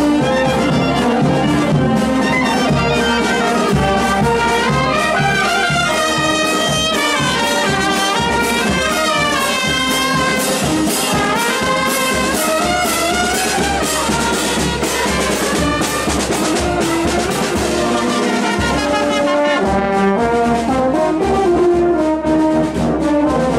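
Marching street band of trumpets, baritone horns and a tuba playing a tune in procession, with hand cymbals clashing a steady beat.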